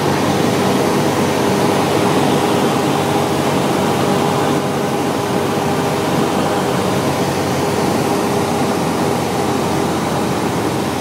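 Cabin noise of a Cessna 172SP in cruise flight: its four-cylinder Lycoming IO-360 engine and propeller running steadily, mixed with wind rush, as heard inside the cockpit. A steady hum with a couple of constant tones runs through it.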